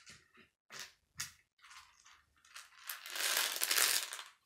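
Plastic K'nex pieces being handled: a few short clicks, then a longer, louder rattling rummage through parts about three seconds in.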